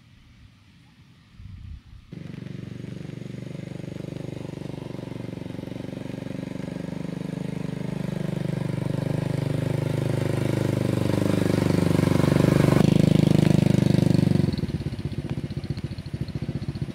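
A motorbike engine starts up about two seconds in and runs, getting steadily louder with its pitch shifting. About two seconds before the end it drops back to a lower, pulsing idle.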